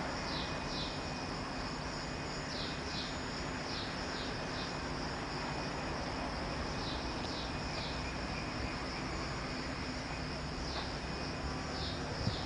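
Outdoor ambience: short high-pitched chirps that fall slightly in pitch, mostly in pairs and small groups, come every second or two over a steady background hum.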